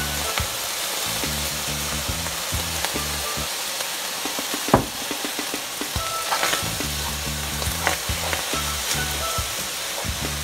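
Rice sizzling as it fries in a large metal pot, with soy sauce just poured over it, while a wooden spoon stirs and scrapes through it; a sharp knock sounds about halfway through.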